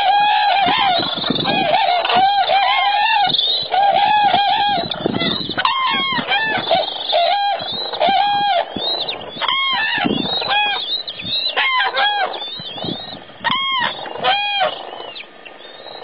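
A flock of common cranes calling: many loud trumpeting calls overlapping at first, thinning out to a few separate calls near the end.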